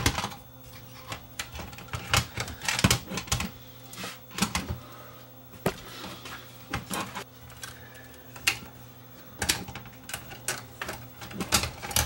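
Irregular sharp clicks and knocks of plastic and metal as the twin cassette deck transport assembly is worked loose by hand from its chassis, some coming in quick clusters.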